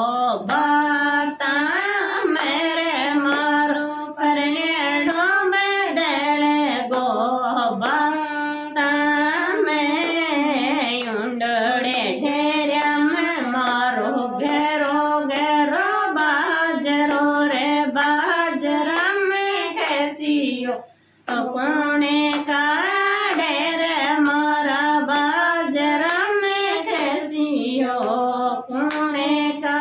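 A woman's voice singing a Rajasthani khyal folk song in long, held, ornamented phrases, with one brief break for breath about two-thirds of the way through.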